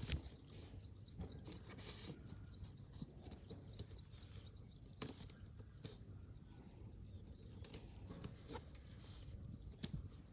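Faint outdoor ambience: a steady low rumble with a thin high whine, broken by a handful of scattered sharp knocks and taps.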